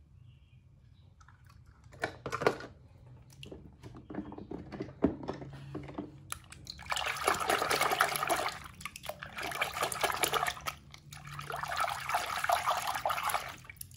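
A hand splashing and swishing in a plastic tub of foamy water. A few separate small splashes come about two seconds in, then steadier sloshing from about six seconds in, with two short pauses.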